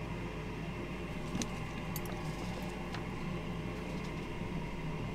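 Steady electrical hum with a fan-like hiss from workbench equipment, with a few faint clicks.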